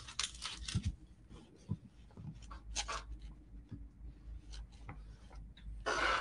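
A small craft iron sliding back and forth over parchment paper, making irregular scratchy rubbing strokes as it presses napkin tissue onto a paper tag. A louder rustle comes near the end.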